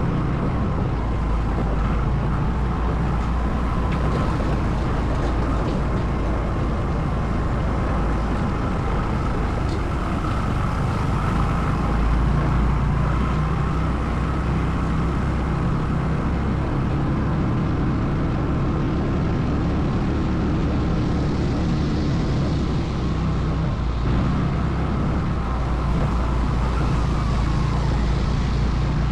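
ATV engine running steadily while riding, a continuous low engine drone under a constant rushing noise.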